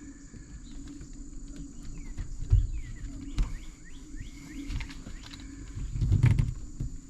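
Spline roller working rubber spline into a window screen frame: scattered small clicks and two low thumps as the frame is handled. A string of short high chirps in the background.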